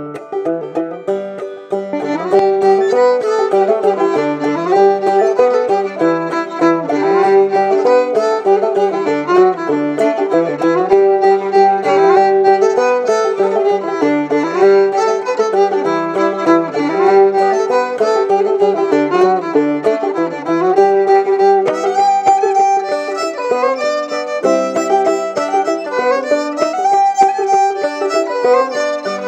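Old-time fiddle and clawhammer banjo playing a tune together, the fiddle carrying the melody over the banjo's picking. The full sound of both instruments comes in about two seconds in, after a thinner start.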